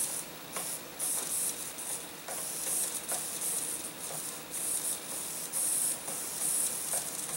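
Irregular short bursts of high hiss, several a second with brief gaps, one longer burst about two to three seconds in.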